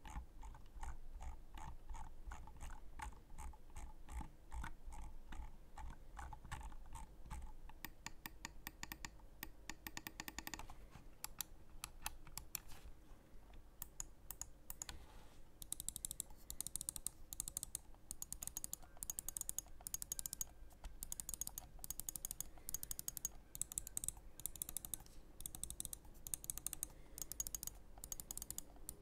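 Roccat Nyth gaming mouse being clicked and its scroll wheel turned: fast runs of small wheel ticks for the first ten seconds or so, then separate, sharper button clicks, two or three a second.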